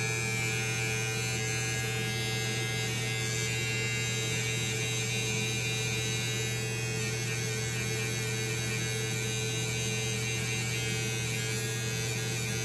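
Electric hair trimmer buzzing steadily with a constant low hum as it edges the hair around an ear.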